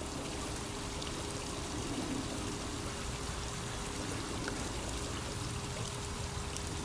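Steady rush of running water, even and unbroken, with a faint steady hum underneath.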